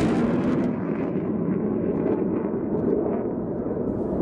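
Jet engine roar of a twin-engine F/A-18 Super Hornet making a low pass through a canyon: a loud, deep, steady rushing rumble, whose high hiss falls away about half a second in.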